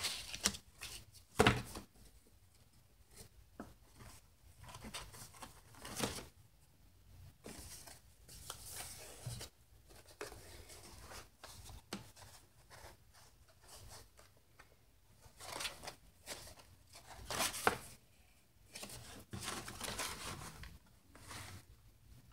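Boiled, plant-printed paper pages rustling and sliding as they are turned over and laid down on a wooden table, in scattered soft bursts with a few sharper ones.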